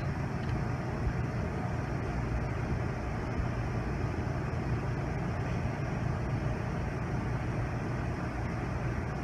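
Steady low hum and hiss of room ventilation or lab air handling, unchanging throughout, with no distinct pouring or handling sounds standing out above it.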